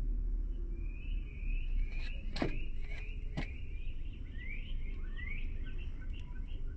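Small birds chirping: a busy run of short, rising chirps repeated many times, with two sharp clicks about two and a half and three and a half seconds in, over a steady low rumble.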